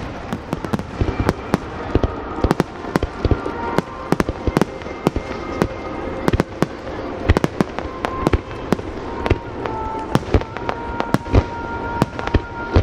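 Fireworks display: aerial shells bursting one after another in a rapid run of sharp bangs, over continuous crackling between them.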